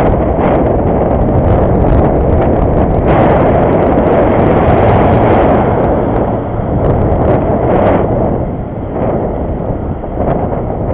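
Wind buffeting the microphone of a camera on a moving bicycle: a loud, steady rumble and rush that eases a little for a few seconds after the middle.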